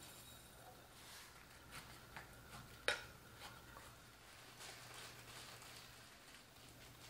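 Faint scattered clicks and light taps, with one sharper click a little under three seconds in, over a low steady hum.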